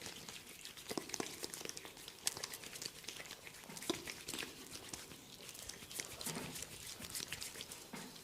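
Close-up crackling and rubbing of a barber's hands working on a client's head, a dense run of irregular small crackles and clicks over a soft rubbing hiss.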